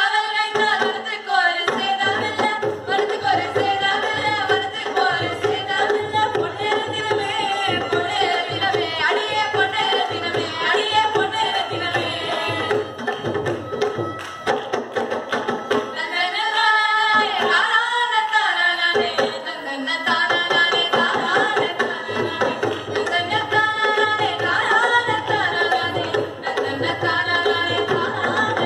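A group of voices singing a Tamil folk song together over a steady hand-drum beat. The drumming falls away for a few seconds about halfway through, leaving the voices, then comes back.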